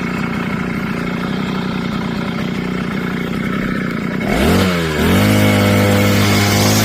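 Brush cutter engine idling, then revved up sharply about four seconds in. It dips briefly and then holds steady at high speed.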